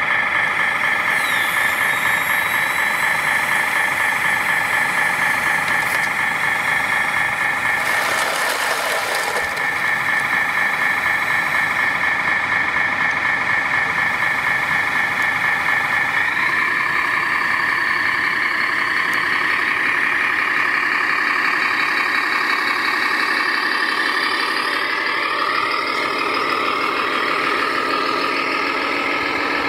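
Scale RC dump truck running with a steady engine-like drone, a short hiss about eight seconds in; from about halfway through the drone shifts and rises in pitch as the truck works.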